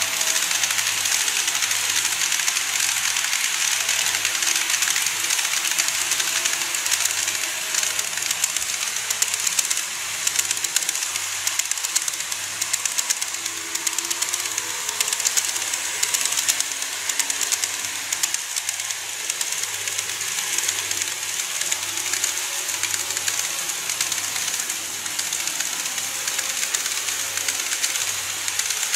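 Model electric trains running past on the track: a steady hiss of wheels and motors, with fast clicking as the wheels cross the rail joints.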